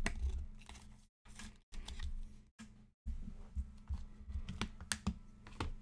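Light clicks and taps of trading cards and a hard plastic card case being handled on a tabletop. The sound cuts in and out, dropping to silence a few times.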